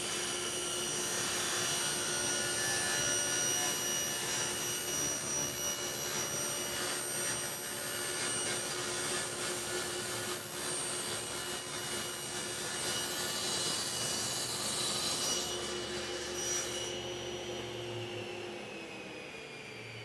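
Table saw running, its blade cutting the first kerf through the crosscut sled's laminate-covered plywood base as the sled is pushed across. About three seconds before the end the cutting noise stops and the saw's pitch falls as it is switched off and winds down.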